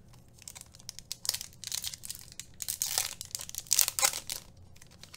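A trading card pack's wrapper being torn open and crinkled by hand, in irregular crackling bursts that are loudest in the middle.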